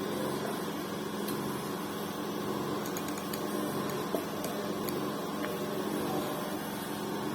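Galileo Gold ventilator running: a steady machine hum with a few faint clicks.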